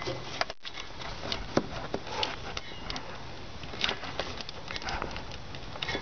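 Irregular small clicks and knocks of a tool and hand prying at the plastic collar and rubber grommet that hold an old accelerator cable in a car's firewall; the collar's snap-lock tabs make it hard to get out.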